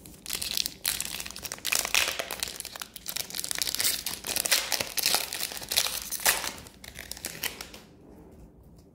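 Foil wrapper of an Upper Deck hockey card pack crinkling and crackling as it is torn open and handled. The crackling stops near the end.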